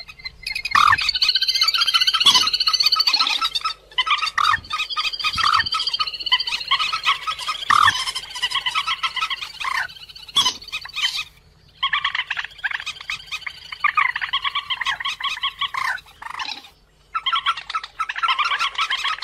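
Recorded calls of the cuốc biển, a Vietnamese rail-family waterbird, played as a trapping lure: rapid strings of repeated calls in long bouts, broken by short pauses about four, twelve and seventeen seconds in.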